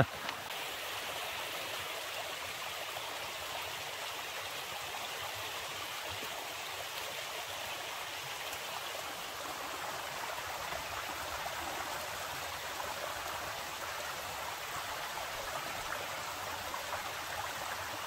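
A stream flowing steadily, an even wash of running water.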